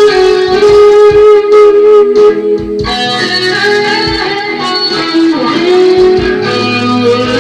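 Electric guitar playing a lead line of held single notes, with the pitch bending and sliding about five seconds in.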